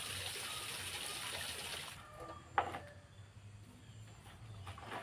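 Water running from an outdoor wall tap into a wok, cut off sharply about two seconds in. Then a sharp clatter of dishes being handled, and a lighter knock near the end.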